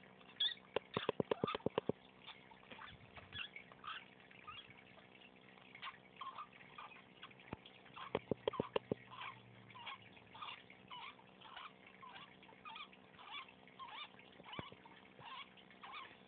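Sick lovebird making repeated short wheezing squeaks, about two a second, broken twice by a quick run of rapid clicks, about a second in and again around eight seconds in; the owner takes these weird sounds for a sign of illness.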